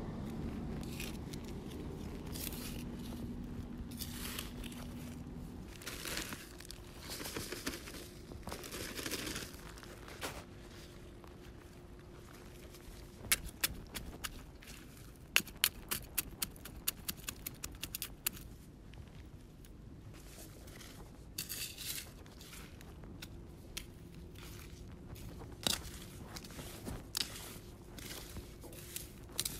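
A shovel digging into field soil: irregular scrapes and crunches as the blade cuts in, with a quick run of sharp clicks midway. The hole is being dug to bury kitchen scraps and cover them with earth for composting.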